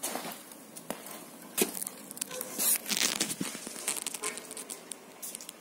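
Irregular rustling and crinkling with scattered knocks and taps from handling a bunch of flowers and picking up the camera, busiest around the middle.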